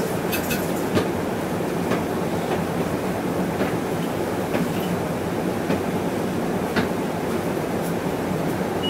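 Cabin sound of a Hino Rainbow II midsize non-step bus on the move: steady engine and road noise, with sharp knocks and rattles about once a second.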